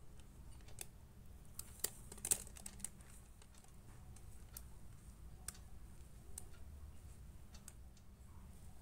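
Plastic piping bag crinkling, with scattered light clicks and taps as thick coffee topping paste is dropped and scraped into it; a cluster of sharper clicks comes about two seconds in.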